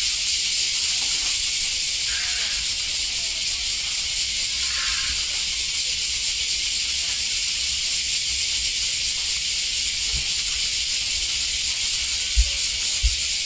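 A steady, high-pitched hiss throughout, with faint voices underneath and a couple of low thumps near the end.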